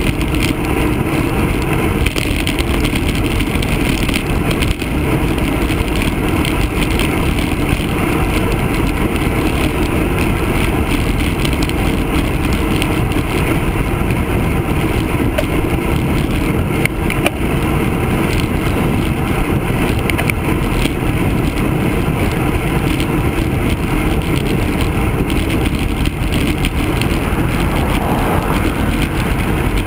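Steady wind rush and tyre and road noise on a bicycle's handlebar-mounted camera while riding along a paved road.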